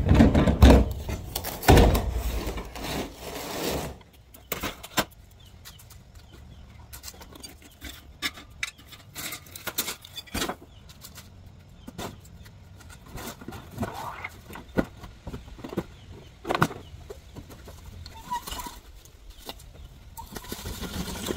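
A heavy cubicle desk panel scraping and thudding as it is shoved onto a box truck's metal diamond-plate floor, loudest in the first few seconds. After that come scattered knocks and clatter of junk being handled.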